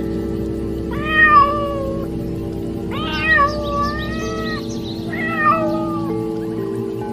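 A cat meowing three times, the middle meow the longest, over soft background music with sustained notes.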